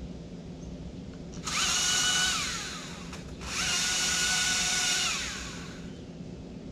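Battery chainsaw run up twice in short bursts, each time its motor whine rising to a steady pitch over the rattle of the chain, then winding down.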